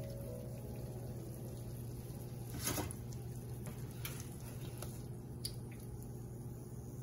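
Hot oil sizzling and dripping in a frying pan as fried samosas are lifted out with tongs, with a few light clicks of the tongs against the pan, the loudest a little under three seconds in.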